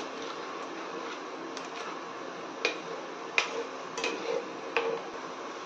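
A metal spoon stirring a thin spiced gravy in a nonstick kadai, clicking against the pan several times in the second half, over a steady low hum.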